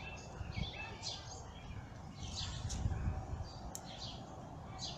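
Birds chirping in the trees, short high calls coming every half second or so, over a low rumble on the microphone.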